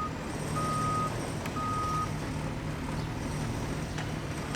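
Construction vehicle's reversing alarm: a steady single-pitched beep about once a second, each beep about half a second long, stopping about two seconds in, over a steady low hum.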